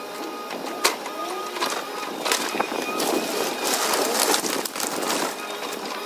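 Wood cracking, snapping and clattering as a Cat excavator's grapple crushes and drops house timbers onto the debris pile. There are repeated sharp cracks about every second over the excavator's faint steady whine and the hiss of a water hose.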